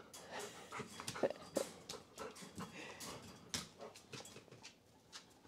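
A chocolate Labrador panting and huffing close by in short, uneven breaths, about two or three a second, dying away near the end.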